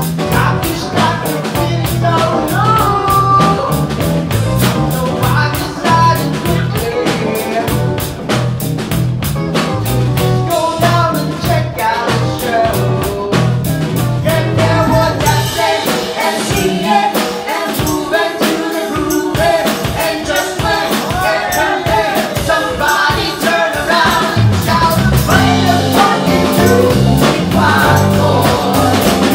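Live band playing a rock song: drum kit with steady cymbal strokes, electric guitar and bass under a man and a woman singing. The deep bass line drops out for several seconds midway and comes back in near the end.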